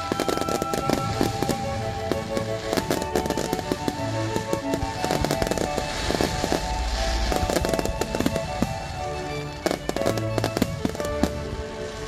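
Aerial fireworks bursting in many sharp bangs, some coming in quick clusters, with music playing steadily alongside.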